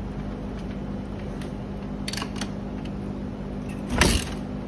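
Kick-starting a 2006 Yamaha YZ450F single-cylinder four-stroke dirt bike: a few faint clicks of the kick lever, then one hard kick near the end as the engine turns over with a single loud burst. It almost fires but does not catch. A steady low hum runs underneath.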